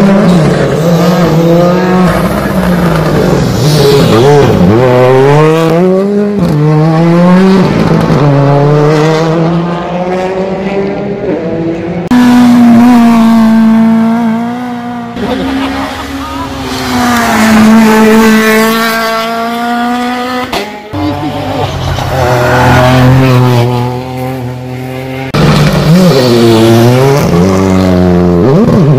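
Rally cars' engines revving hard through the gears, the pitch climbing and then dropping at each shift or lift, in several cut-together passes. The sound changes abruptly about twelve seconds in and again a few seconds before the end.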